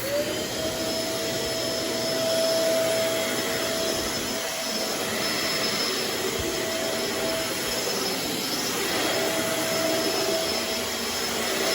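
Shark Navigator Swivel upright vacuum's motor switching on and spinning up with a quickly rising whine, then running steadily with an even whine and airflow noise. It runs normally after its jammed cyclone was cleared.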